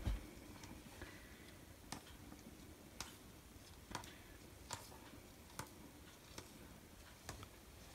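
Russian tortoise's claws clicking on a hardwood floor as it walks: faint single ticks, roughly one a second.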